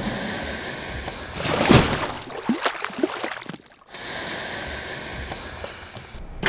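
Sound-effects track of a drinks commercial playing with no music or voice: watery rushing, a loud swoosh about two seconds in, then a few quick sharp hits. A steady rush follows and cuts off abruptly just before the end.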